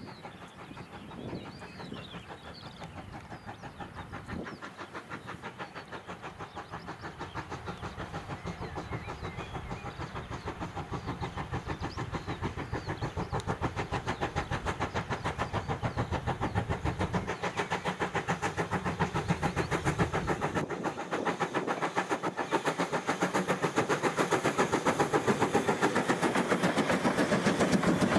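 GWR 2800-class 2-8-0 steam locomotive No. 2807 working a train of coaches, its exhaust beats coming in a fast, even rhythm and growing steadily louder as it approaches and passes close by at the end.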